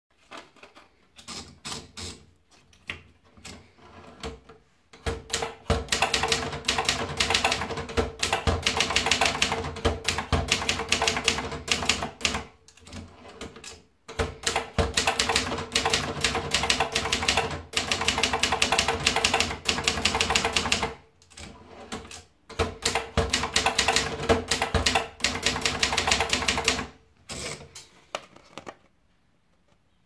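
Brother Deluxe 220 manual portable typewriter. First, scattered clicks as the paper is fed in and wound around the platen. Then three long runs of rapid key strikes, one for each line typed, with short pauses between them, and a few last clicks.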